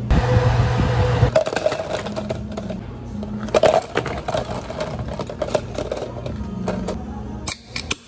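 Ice cubes scooped with a metal ice scoop and dropped into plastic cups, clinking and clattering in many quick knocks. The first second holds a loud, even rushing noise, and a steady low hum runs underneath throughout.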